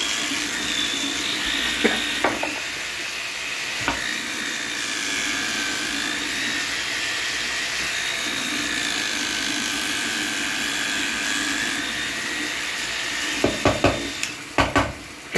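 Electric toothbrush buzzing steadily. Near the end the buzzing stops and a few sharp knocks follow.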